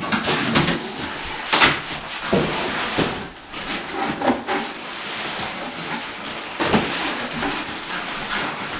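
Cardboard box flaps pulled open and a plastic-wrapped rolled mattress dragged out of the box: cardboard scraping and rustling, plastic crinkling, and several knocks along the way.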